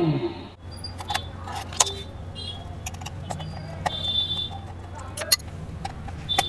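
Scattered small clicks and scrapes of a screwdriver working the battery-cover screw on a plastic remote-control handset, over a low steady hum. Music cuts off about half a second in.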